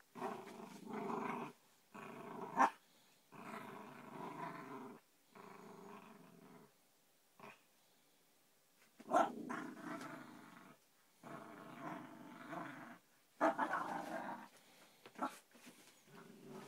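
Whippet–Jack Russell cross puppy growling in play while she tugs and shakes a rope toy. The growls come in bouts of a second or two with short pauses, and a few sharp yaps are mixed in.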